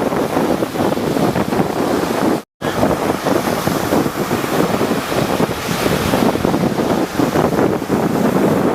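Rough sea waves surging and breaking, with wind buffeting the microphone. The sound cuts out completely for a moment about two and a half seconds in.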